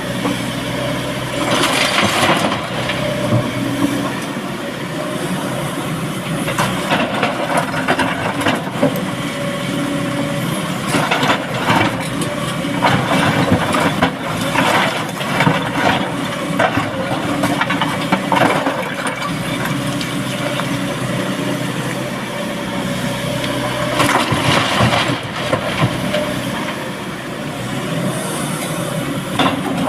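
Heavy diesel machinery running steadily, with repeated bursts of clattering and crunching rock as an excavator loads a dump truck.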